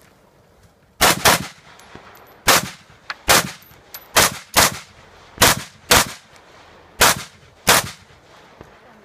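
Semi-automatic rifle firing a string of about ten shots, mostly in quick pairs roughly a third to half a second apart, with longer pauses between the pairs.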